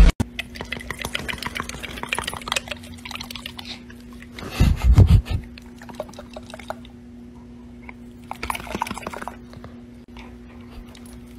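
A dog's loose lips and jowls flapping wetly as a hand jiggles its head, a fast irregular wet rattling, with one louder low thump about four and a half seconds in and a steady low hum underneath.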